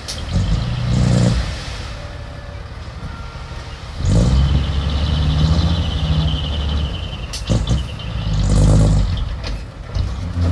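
Heavy earthmoving machine's engine revving in three surges, the longest in the middle, with a high rattling squeal during it and a couple of sharp metallic knocks after it.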